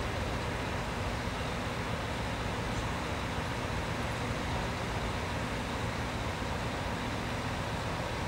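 VT 627 single-car diesel railcar's underfloor diesel engine idling steadily, a constant rumble with a faint steady hum and no change in revs.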